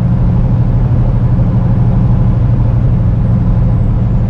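Heavy truck's diesel engine running steadily, a loud, even low drone.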